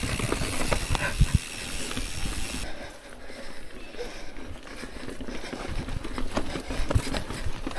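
Mountain bike rolling over a rocky trail: tyre crunch on rock and dirt with scattered knocks and rattles, under a hiss of wind on the microphone that drops away about two and a half seconds in.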